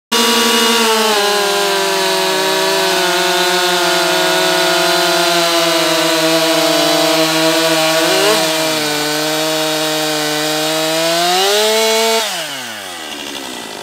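Two professional two-stroke chainsaws, a Husqvarna 550 XP Mark II and a Stihl MS 261 C-M, run at full throttle through the same log, their pitch pulled down under load. About eight seconds in, the Husqvarna finishes its cut and its engine note falls away. The Stihl cuts on until about twelve seconds in, then revs up as it breaks free of the wood and winds quickly down toward idle.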